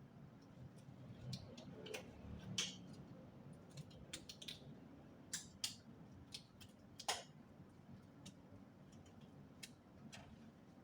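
Scattered light clicks and taps of small objects being handled, a few of them louder knocks.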